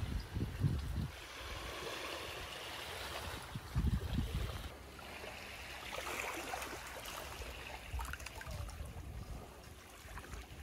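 Small waves washing in over the shore, swelling and falling back, with a few low gusts of wind on the microphone near the start and about four seconds in.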